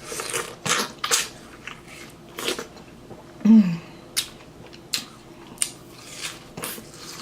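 Close-miked chewing of crunchy snack food: a crisp crunch every half second to a second. A brief low hum about three and a half seconds in.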